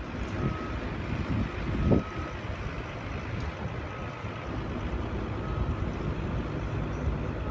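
A vehicle's low rumble with wind noise, and one louder thump about two seconds in. A faint short beep repeats about every one and a half seconds.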